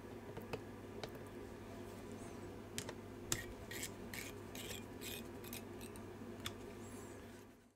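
Faint small clicks and scraping of screwdriver tips on a graphics card's heatsink clamp screw as it is tightened, with a run of short scratchy rasps about halfway through, over a low steady hum.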